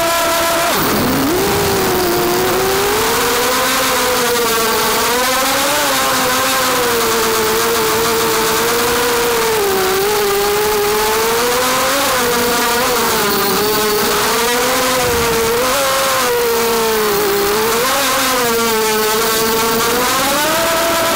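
Motors and propellers of a 250-size FPV racing quadcopter heard from its onboard camera: a loud buzzing whine that drops sharply about a second in as the throttle is cut, then rises and falls with the throttle through the flight, climbing back to a higher, steadier pitch near the end.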